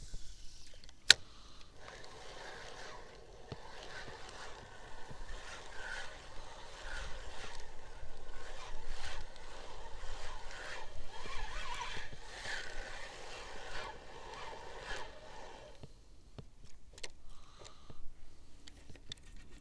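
Spinning reel being cranked to retrieve a wobbler, its gears whirring steadily with a faint rattle, from just after a sharp click about a second in until it stops about three-quarters of the way through; a few faint clicks follow.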